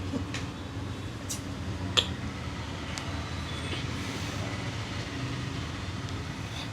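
Steady low rumble of background traffic, with a few faint clicks and one sharp click about two seconds in.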